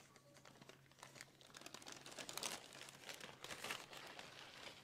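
Baking paper faintly rustling and crinkling in several soft bursts as it is unrolled and peeled back off a sheet of dough.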